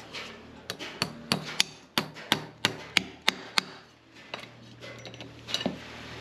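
Farrier's driving hammer striking nails through a steel horseshoe into a horse's hoof: about ten quick, sharp, ringing blows at roughly three a second, then a few lighter knocks near the end.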